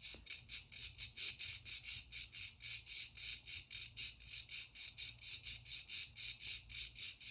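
Sharpening stone rubbed rapidly back and forth against the face of a steel dental sickle scaler: an even, rhythmic scraping at about five strokes a second.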